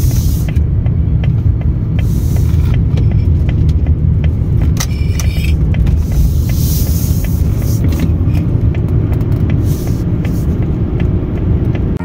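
A 1992 Jaguar XJ40 being driven, heard from inside the cabin: a steady low engine and road rumble, with light regular ticking over it.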